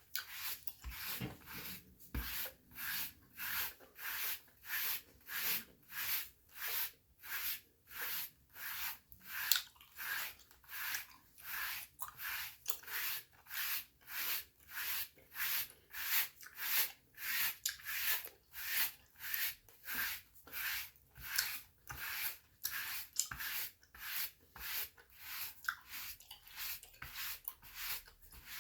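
Stiff-bristled dry brush stroking over bare skin in a steady rhythm, about one and a half bristly swishes a second.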